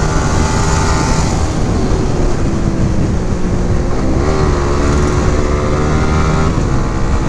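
Yamaha 155 cc single-cylinder motorcycle engine running steadily at high revs while cruising at about 90 km/h, under a constant rush of wind and road noise. The engine note dips and climbs again briefly about four seconds in.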